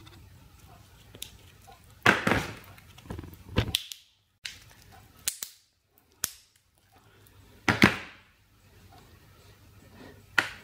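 Hard black casing and potting compound of a power-saver 'black box' cracking and snapping as they are pried apart with a small screwdriver: a string of irregular sharp snaps, the loudest about two seconds in and near eight seconds.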